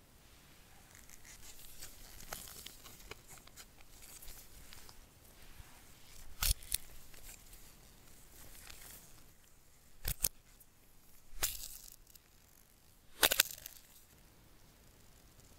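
Gloved hands handling a coiled USB-C charging cable and its paper wrap band: soft rustling and crinkling, then four short sharp crackles spread over the second half, the last the loudest.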